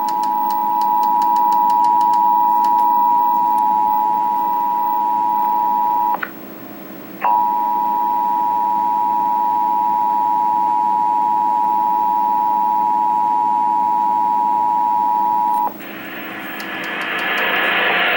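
Emergency Alert System attention signal: a steady two-tone alert of about 853 and 960 Hz sounded together. It breaks off for about a second some six seconds in, resumes, then cuts off near the end, giving way to a harsh burst of noise.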